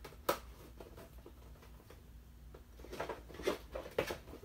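Cardboard Funko Pop box and its plastic insert being opened and handled: one sharp click about a third of a second in, then a quick run of scratchy clicks and rustles near the end.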